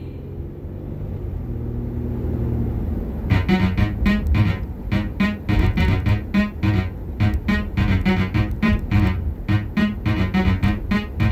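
Pop music playing on a car stereo: a low, steady hum for the first three seconds, then a track with a quick, regular beat starts up.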